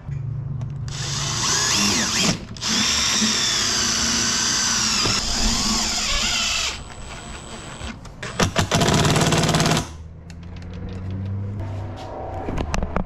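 Cordless power driver running screws into a metal bracket in three bursts: a short one, a long one of about four seconds and another short one near the end, the motor's pitch wavering as it loads up.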